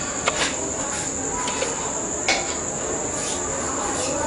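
A steady high-pitched whine, with a few short sharp clicks of a paintbrush knocking against a small metal tin of adhesive as glue is brushed onto vinyl flooring, one near the start and one about halfway through.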